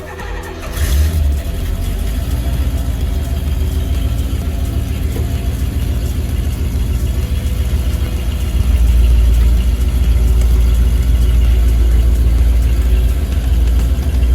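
Porsche 928S V8 engine running with a deep, steady rumble. It comes in about a second in and grows louder past the middle.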